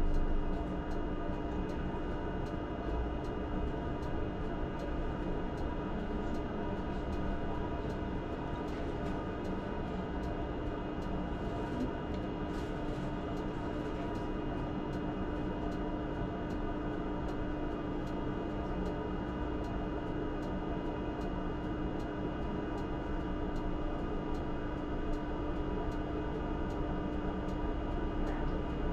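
ČKD Tatra T6A5 tram running, heard from inside the driver's cab: a steady rumble with a constant hum.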